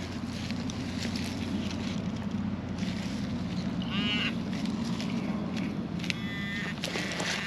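Short, pitched honk-like electronic tones from metal detecting gear as the soil plug is searched for a target: one about four seconds in, and a longer one a little after six seconds. They sound over a steady low hum.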